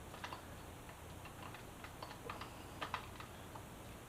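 Faint, irregular small clicks and taps of plastic parts being handled as the instrument cluster's wiring connector and rubber foam are worked into place.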